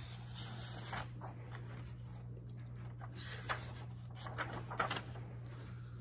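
Pages of a hardcover picture book being handled and turned: soft paper rustling with a few light taps, over a low steady hum.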